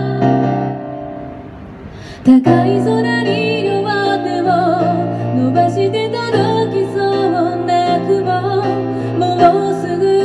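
Female singer with her own piano-voiced keyboard: a held chord fades away, then a sudden loud attack about two seconds in brings the keyboard back in, and she sings over its chords.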